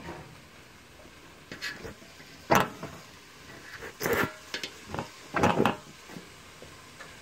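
A few short, sharp knocks and clunks of kitchen handling, about a second or more apart, over a quiet background.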